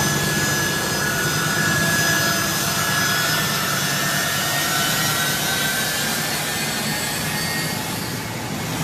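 Turbofan engines of a US Air Force C-17 Globemaster III transport running as it taxis: a steady loud jet rush with a high, thin whine over it.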